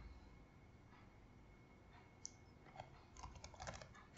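Faint computer keyboard typing: near silence at first, a single key click about two seconds in, then a quick run of key clicks near the end.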